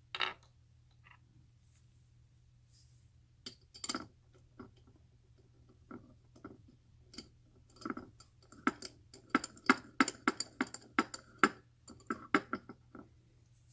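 Small clicks and clinks of the parts of a hand 12-gauge shotgun-shell reloading kit being handled and fitted together as the capping tool goes on for priming. The clicks are scattered at first and come thick and fast in the last few seconds.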